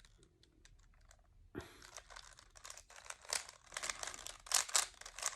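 Rubik's Cube being twisted by hand: plastic layers clicking and rattling as they turn, a few faint clicks at first, then a quick continuous run of clicks from about a second and a half in.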